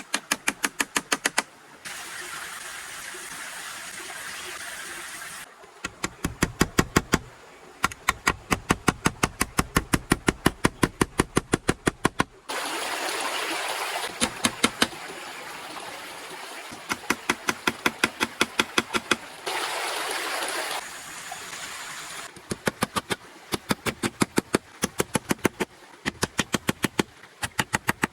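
Repeated runs of sharp, evenly spaced knocks, about five a second, alternating with stretches of steady rushing noise.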